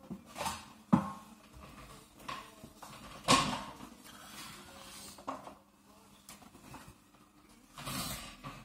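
A few sharp knocks and clatters of hard objects being handled, the two loudest about a second and about three seconds in, with quieter rustling between.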